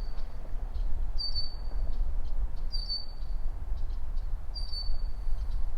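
A bird repeating a short, high, slightly falling chirp about every one and a half seconds, four times, over a steady low rumble.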